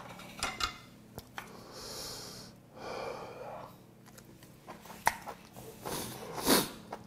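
A man eating ramen close to a lapel microphone: heavy breaths, slurping and chewing of noodles, and a few light clicks of chopsticks. The loudest mouth noise comes near the end.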